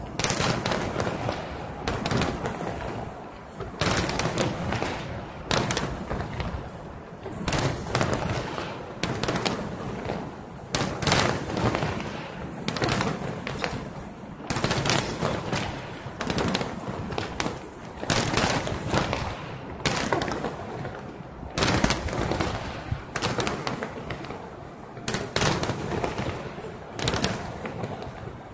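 Fireworks display: aerial shells bursting one after another in a dense run of bangs, with no pause.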